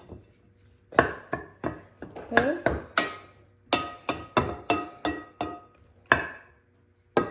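A spoon clinking and knocking against a mixing bowl while pasta salad is stirred, about two strikes a second, each with a short ringing tone from the bowl. A quiet first second; one last knock near the end.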